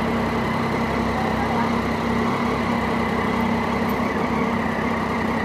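Triumph Daytona 675's inline three-cylinder engine idling steadily.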